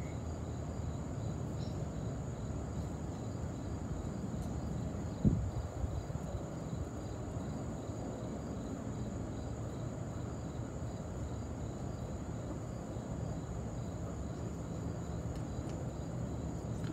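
Outdoor ambience: steady insect chirring, typical of crickets, over a low rumble, with one sharp thump about five seconds in.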